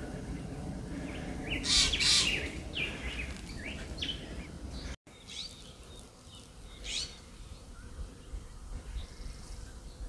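Wild birds chirping, a few short high calls at a time, over a steady low background hiss. The sound drops out for an instant about five seconds in.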